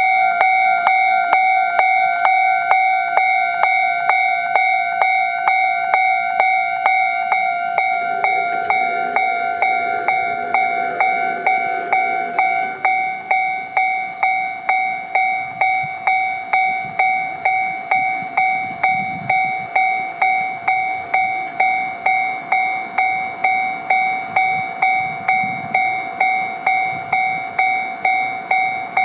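Japanese railway level crossing warning bell starting suddenly and ringing on in an even, ringing beat of about two strokes a second: the signal that a train is approaching and the crossing is closing.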